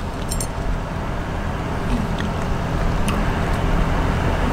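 Steady low rumble and hum of background noise, with a few faint crinkles and clicks from small candy wrappers being picked at by hand.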